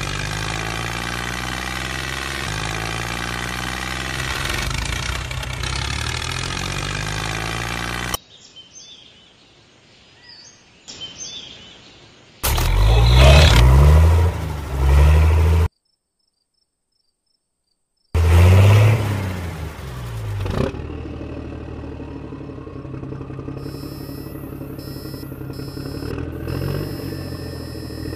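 Small motor of a homemade miniature tractor running under load as it pulls a trolley of gravel, a steady hum. After a cut it runs again in loud short spells, slows with a falling pitch, then hums more quietly and picks up speed with a slowly rising tone.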